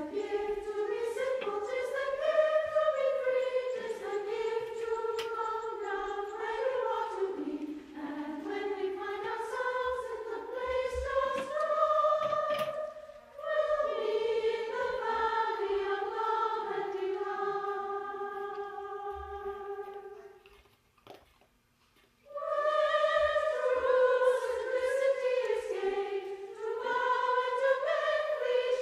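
Background music of singing voices in long, held, slowly moving notes, with a short break about three-quarters of the way through.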